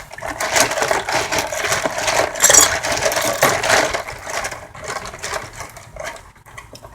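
Loose steel bolts rattling and clinking against each other in a dense clatter that thins out over the last few seconds.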